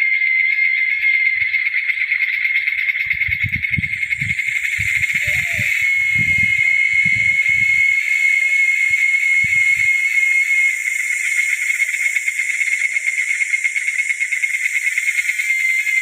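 Loud, steady insect chorus: a continuous high-pitched shrill buzz, with a second, higher hiss joining about four seconds in. Low rumbling bursts come between about three and ten seconds in.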